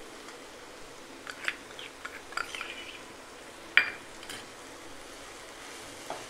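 A few light clinks and taps of kitchen utensils and cookware, with one sharper knock just before four seconds in, over a faint steady background hiss.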